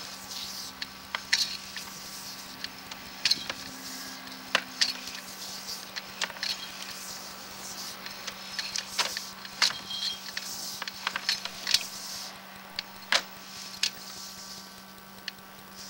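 Sewer inspection camera being pushed down a drain line: irregular sharp clicks and taps as its push cable is fed out, over a steady electrical hum.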